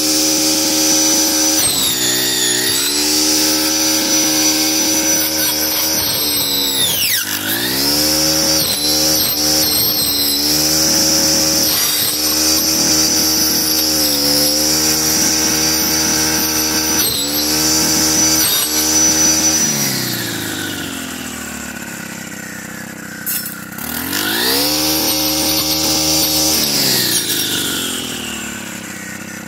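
Stihl FS 131 brushcutter with a saw blade attachment running at high revs, its pitch dipping briefly several times as the blade cuts into brush. About two-thirds through it drops to idle, is revved up once more, then falls back to idle near the end.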